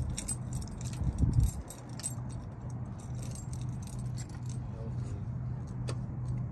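Keys jingling with small metallic clicks over a steady low vehicle hum. A couple of low thumps come in the first second and a half.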